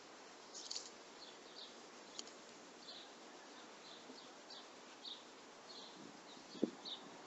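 Faint outdoor ambience: a steady hiss with short high chirps repeating about twice a second. A single sharp knock comes near the end.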